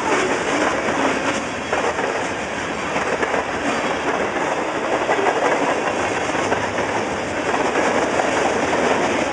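Freight cars of a CN freight train rolling past, their steel wheels clattering on the rails in a steady din.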